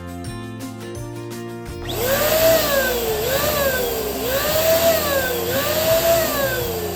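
Electric balloon pump blowing air into a balloon, starting about two seconds in: a loud airy hiss with a tone that rises and falls about four times. Background music plays before it.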